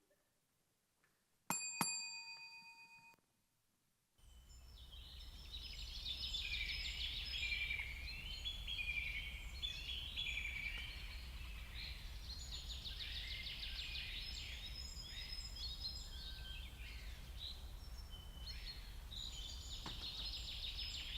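One bell-like chime rings out about a second and a half in and dies away. From about four seconds in, a forest ambience of many birds chirping and calling fades in over a steady low hum.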